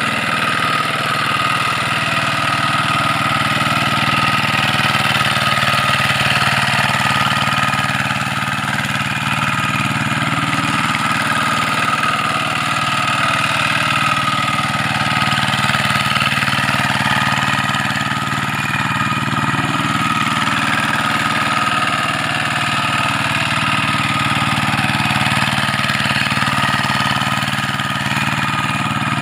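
Engine of a two-wheel hand tractor with cage wheels running steadily at an even speed while it works a flooded rice paddy.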